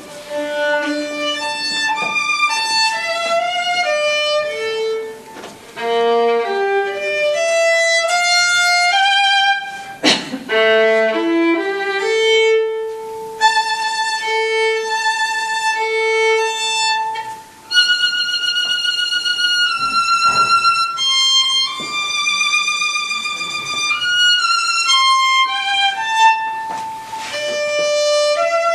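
Violin played live: quick runs of short notes alternating with long held notes sung out with vibrato.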